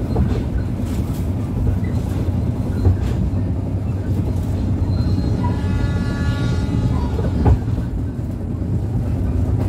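Argo Lawu passenger train running on the rails: a steady low rumble with occasional wheel clacks. A higher pitched tone sounds for about two seconds in the middle.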